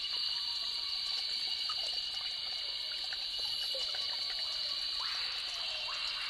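Water trickling steadily over rocks, over a constant high-pitched drone. About five seconds in, a louder rush of water swells in.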